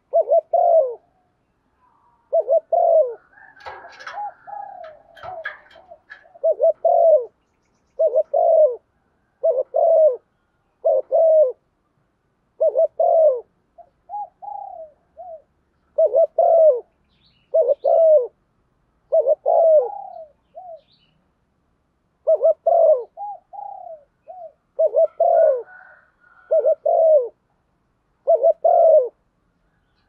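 Female spotted dove cooing over and over, short low coos about one a second, some in close pairs. This is the hen's calling coo, used to rouse a male.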